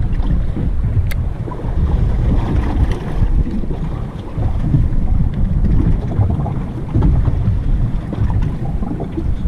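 Wind buffeting the microphone out on the open sea from a fishing boat, a loud, gusty low rumble. A single sharp click about a second in.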